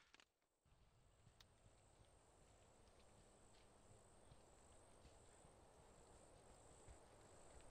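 Near silence: faint woodland ambience with a steady, high insect trill, typical of crickets.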